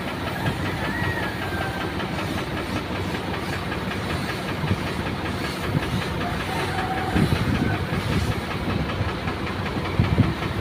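Suction-feed paint spray gun hissing steadily as it sprays paint, over a steady mechanical running sound.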